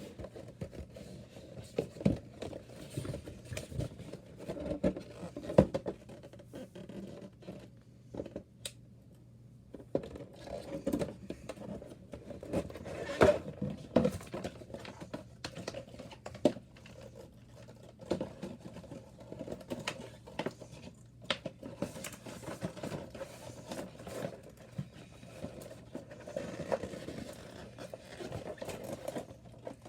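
Irregular handling noise: a headset and its packaging being scraped, rustled and set down, with scattered short knocks and taps.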